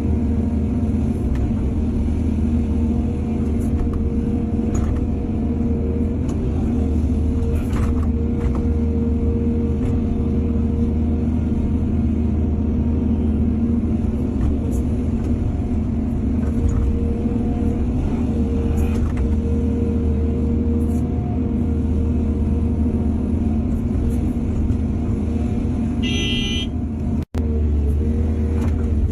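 Excavator's diesel engine running steadily with a deep hum, and a few light knocks of the machine at work. Near the end comes a short high-pitched tone, and right after it the sound cuts out for an instant.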